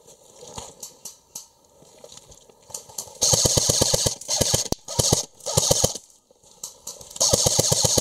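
Airsoft electric rifle firing on full auto, rapid clicking shots about fifteen a second: one burst of nearly a second about three seconds in, three short bursts, then another near the end. Faint rustling and movement before the first burst.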